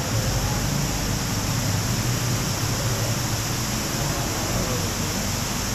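Steady rushing noise with no distinct events, even throughout.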